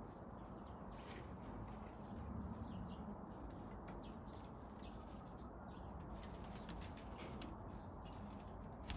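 Faint, short high chirps scattered throughout, with soft rustles and a few clicks in the second half as a Eurasian jay fluffs and shakes out its damp feathers after bathing.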